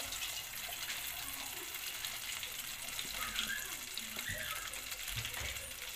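Chicken pieces deep-frying in a pot of hot oil: a steady sizzling hiss with fine crackling.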